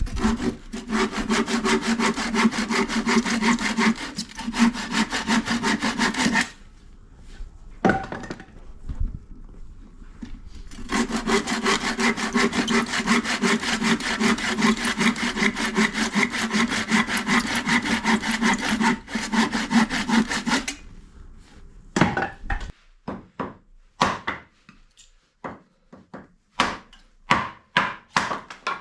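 Firewood being sawn in two long runs, the second starting about eleven seconds in, followed near the end by a series of separate sharp knocks of wood.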